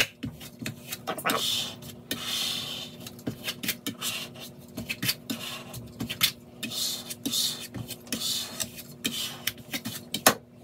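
Plastic squeegee rubbing and scraping across vinyl on a glass cutting board in repeated short strokes, with small clicks and knocks as the board and squeegee are handled, pressing the excess application fluid out from under the vinyl.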